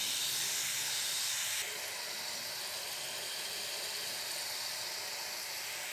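Rings of rice-flour chegodi dough sizzling as they deep-fry in hot oil in a pan: a steady high hiss that drops a little about one and a half seconds in.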